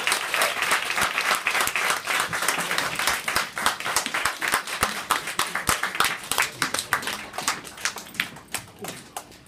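Audience applauding at the end of a live band's song, the clapping thinning out and dying away over the last couple of seconds.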